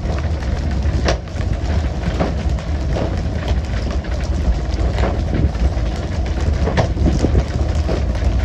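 Fishing boat's engine droning steadily under the rush of water spray and wind, with a few sharp knocks on the deck about a second in and again around five and seven seconds.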